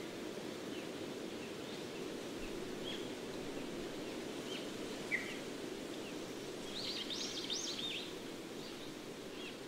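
Nature ambience: birds chirping now and then over a steady low hiss, with a quick run of chirps about seven seconds in.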